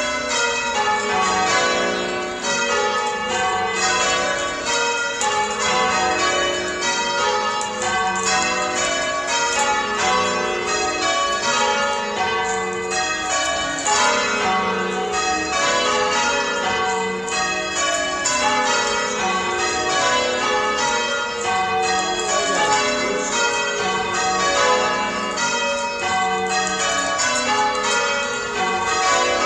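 A ring of church tower bells being change-rung on ropes, the bells striking one after another in a steady, unbroken rhythm.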